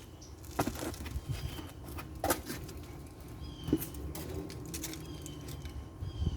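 Scattered knocks and clicks as things are handled, five or so spread irregularly, with a few faint high bird chirps in the background.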